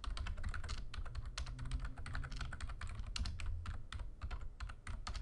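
Typing on a computer keyboard: a quick, uneven run of keystrokes, several a second, over a low steady hum.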